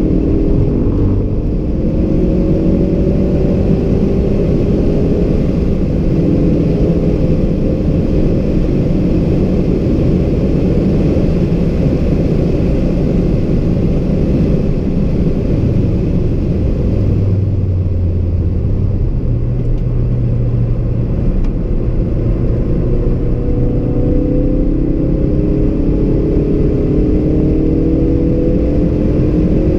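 Ford Focus RS mk3's turbocharged 2.3-litre four-cylinder engine pulling hard at speed, heard inside the cabin with heavy tyre and road noise. The engine pitch climbs near the start and again over the last several seconds as the car accelerates.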